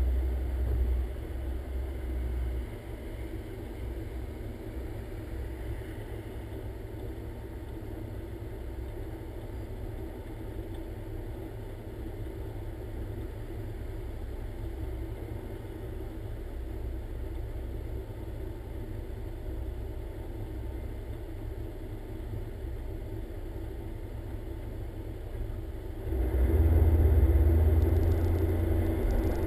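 Car engine idling at a standstill, a steady low rumble heard from outside at the front of the car. About 26 seconds in the rumble grows suddenly louder as the car pulls away.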